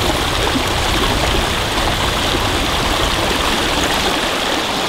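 Small rocky stream running over stones, a steady, even rush of water.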